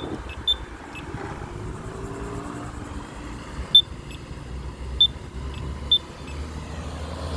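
Pedestrian crosswalk push button giving short, high-pitched beeps, several of them at uneven intervals, over the steady rumble of road traffic.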